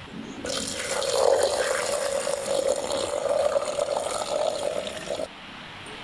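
Salt poured in a steady stream into a stone mortar. The pour starts about half a second in and stops abruptly near the end.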